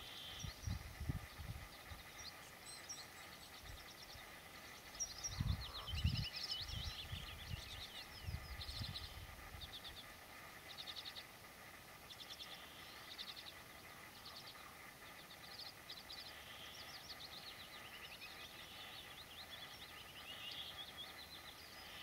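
Woodlark singing: short trilled phrases repeated again and again, high-pitched. Wind buffets the microphone in low rumbling gusts during the first nine seconds or so, loudest about six seconds in.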